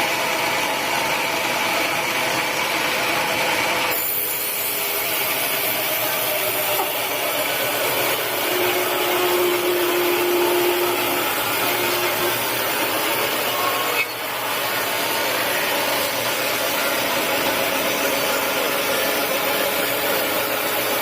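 Sawmill saw cutting through teak, a steady loud rasping noise that changes character abruptly about four seconds in and again near fourteen seconds.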